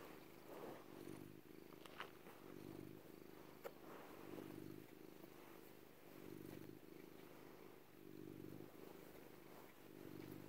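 Domestic cat purring faintly and steadily, swelling and fading about once a second with each breath. A couple of small clicks about two and three and a half seconds in.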